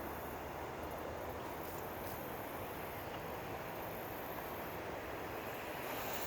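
Steady, even rolling and motor noise from the small vehicle he is driving along the trail, with no distinct events.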